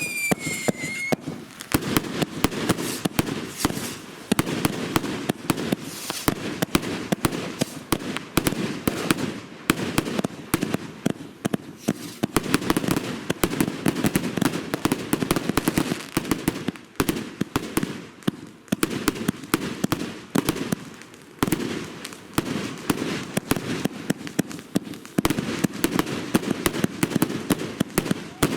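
Consumer firework cakes firing continuously: a dense, rapid stream of sharp reports and crackling over a steady low rumble of launches. A whistle falling in pitch ends about a second in.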